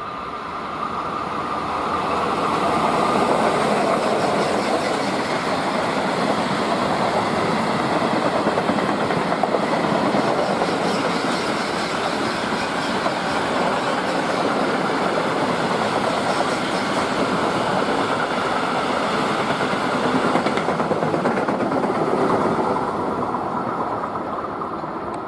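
Freight train running past, its wheels rolling over the rails; it swells over the first two or three seconds and then holds steady as the wagons go by.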